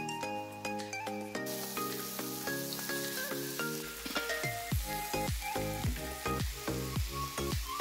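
Hearts and other innards sizzling as they fry in a nonstick pan, the sizzle starting about a second and a half in. Background music plays throughout, with a steady beat coming in about four seconds in.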